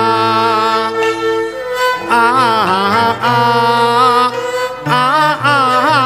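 A male Cantonese opera (yuequ) singer holding long, wavering vowel lines with vibrato, backed by a Chinese and Western instrumental ensemble. There are brief breaths about a third of the way through and near the end.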